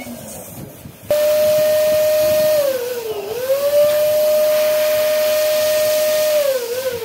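Electric balloon pump switched on about a second in, inflating a balloon: its motor whines at a steady pitch over a rush of air. The pitch sags and recovers about three seconds in, and wobbles again near the end.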